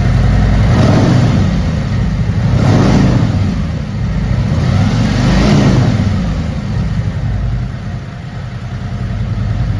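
2024 Harley-Davidson CVO Road Glide's 121 cubic-inch Milwaukee-Eight V-twin running through a Jekill & Hyde variable exhaust, blipped three times about two seconds apart, each rev rising and falling back to a steady idle, which it holds through the second half.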